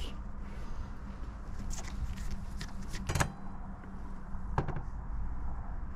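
A few light knocks and clicks of parts being handled, over a steady low hum.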